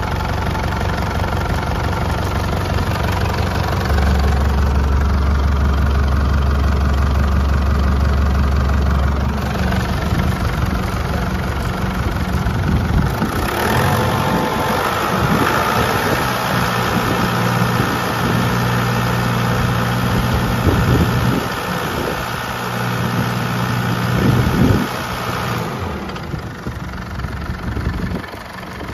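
2010 Holden Colorado's 3.0-litre four-cylinder turbo-diesel engine idling just after start-up.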